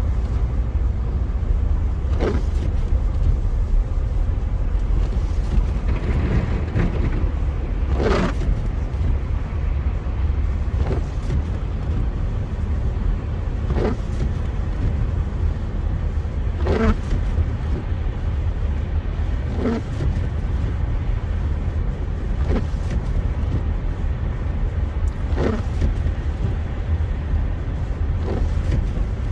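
Car cabin road noise while driving on a snowy highway: a steady low rumble of engine and tyres. A windshield wiper sweep comes about every three seconds.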